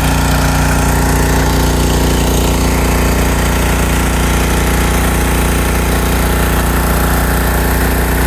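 Craftsman gas pressure washer's small single-cylinder engine running steadily at a constant speed.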